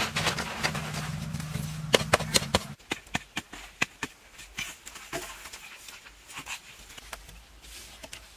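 Close-miked eating sounds: sharp clicks and crunches of chewing and mouth noises. A steady low hum underlies them for the first few seconds and cuts off abruptly, after which the chewing clicks go on more quietly.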